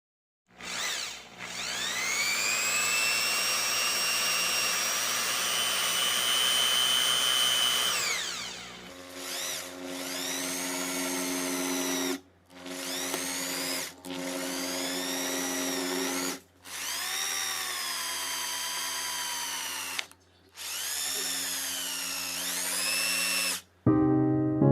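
Electric drill running in bursts: one long run, then about five shorter runs with brief stops, its motor whine sagging and rising in pitch as it works.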